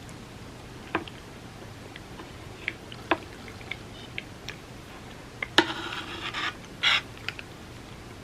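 Close-miked eating sounds: scattered small clicks and mouth noises, then a sharp crunch about halfway through, followed by a second of crackly chewing and another short crunch.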